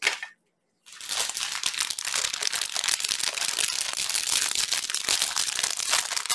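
Clear plastic wrapping crinkling steadily as hands handle a wrapped package and pull at the wrap. A brief tap comes just before the crinkling starts.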